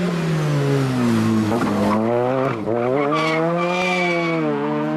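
Rally car engine working through a corner: the engine note falls as the car slows, breaks briefly about two and a half seconds in, then climbs again as it accelerates out of the bend.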